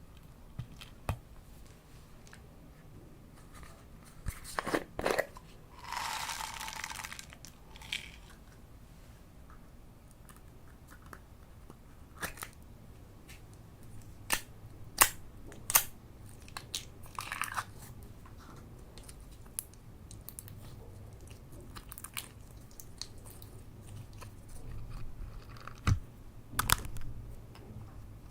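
Slime being squeezed and poked by hand: scattered sharp crackles and clicks, with a brief hissing burst about six seconds in.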